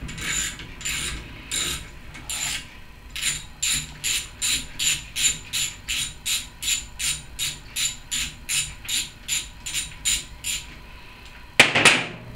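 Socket ratchet wrench clicking in repeated strokes as it backs out the 8 mm bolts holding the rocker arms on a Briggs & Stratton overhead valve engine. A few slow strokes give way to a quick even run of about two and a half a second, and a louder clatter follows near the end.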